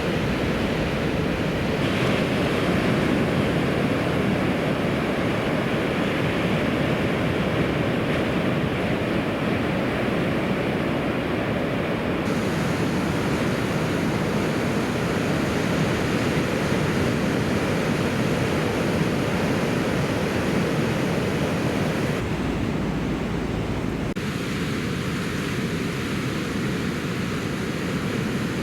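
Steady rush of breaking ocean surf, its tone changing abruptly a few times.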